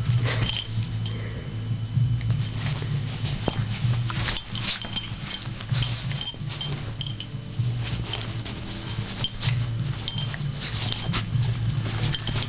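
A chihuahua and a miniature pinscher scuffling in a play fight: a quick, irregular patter of paws and claws, with small metallic jingles that are likely collar tags, over a steady low hum.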